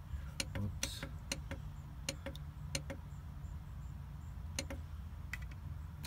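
Push buttons on a solar MPPT charge controller being pressed, about a dozen sharp, irregularly spaced clicks, with a faint steady low hum underneath.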